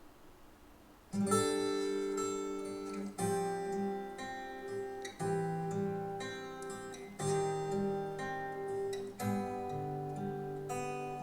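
Acoustic guitar intro played back through a Ruark Audio R5 music system: strummed chords ringing out about every two seconds, starting about a second in.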